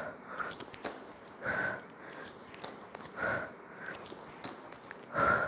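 A woman breathing hard through crunches: a strong exhale roughly every second and three-quarters, three in all, with a shorter intake of breath between each.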